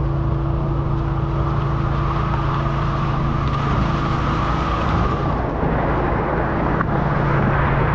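Fish-stocking truck running steadily with a low hum while water rushes out of its tank as trout are released.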